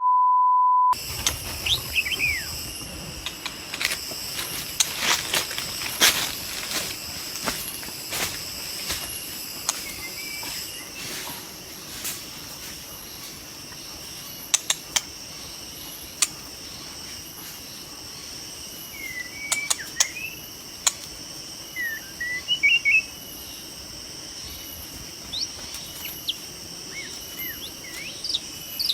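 A brief steady beep, then insects buzz steadily at a high pitch. Short bird chirps that bend in pitch come through now and then, with scattered sharp clicks, most of them in the first half.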